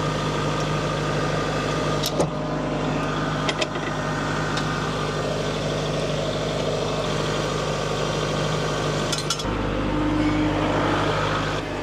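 Kubota compact tractor's diesel engine idling steadily while its three-point hitch arms are pinned to a ballast box, with a few sharp metallic clanks from the hitch pins. About nine and a half seconds in, the engine note deepens and a new steady tone joins it.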